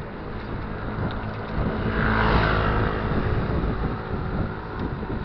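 Wind rushing over the microphone of a moving bicycle, with a motor vehicle passing close by: its engine and tyre noise swell to a peak about two seconds in and then fade.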